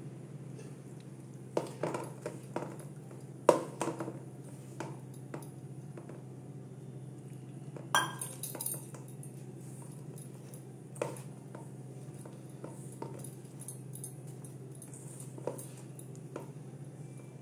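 Hands kneading flour and water into dough in a stainless steel bowl, with scattered clinks and knocks of steel against steel, the loudest about three and a half seconds in and another about eight seconds in. A steady low hum runs underneath.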